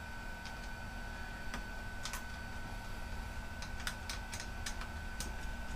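Scattered light clicks and taps of small laptop parts and cables being handled during disassembly, over a faint steady high-pitched tone and low hum.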